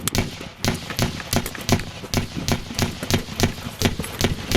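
A rapid, steady series of sharp thuds and cracks, about three to four a second.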